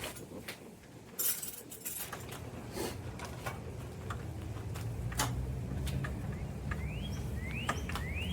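Light clicks and clinks of small screws and lock parts being handled, with a short plastic-bag rustle about a second in. A low steady hum comes in after about two seconds, and a bird chirps a few times in quick short rising notes near the end.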